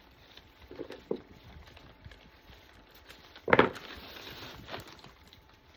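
Craft materials handled on a tabletop: two light taps about a second in, then a sharp, louder knock about three and a half seconds in, followed by a second or so of rustling.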